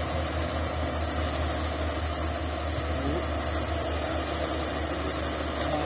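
Shantui bulldozer's diesel engine running steadily with a low rumble.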